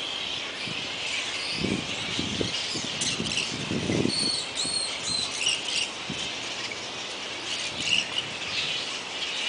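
A roosting colony of flying foxes squabbling: a continuous din of overlapping high-pitched squeaks and chattering calls. A few low muffled thumps come about two and four seconds in.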